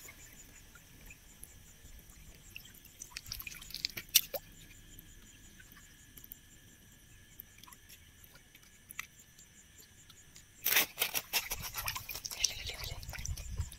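Night insect chorus, crickets trilling steadily on several high pitches, with a few sharp clicks. From about eleven seconds in, a burst of close rustling and splashing in shallow water.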